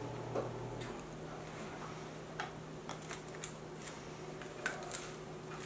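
Faint, scattered clicks and taps from an OXO cookie press being handled to change its shape disc, over a low steady hum.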